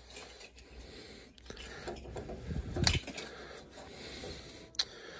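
Light handling clicks and scraping as a water pressure gauge is threaded onto a brass drain valve, with a sharper click about three seconds in and another near the end.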